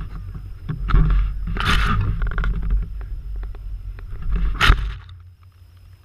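Wind buffeting the microphone: a heavy, uneven rumble with gusts, including two sharp rushes of hiss, that dies down about five seconds in.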